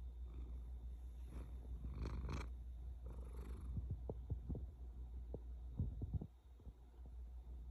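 A Ragdoll kitten's low, steady rumble, with soft rustling about two seconds in and a few light clicks later. The rumble drops away briefly about six seconds in.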